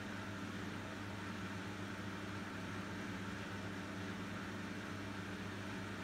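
Profilo CMS140DTR front-loading washing machine running in its spin program, a steady, even hum with no knocks or changes.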